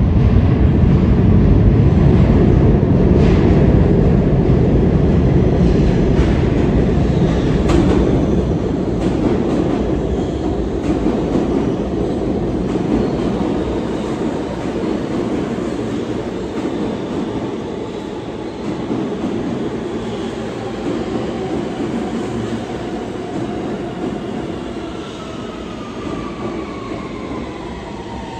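R160-series New York City subway train entering the station and braking to a stop. The wheels rumble and clatter loudly at first, then grow quieter as it slows, and near the end a falling whine sounds as the train comes to a halt.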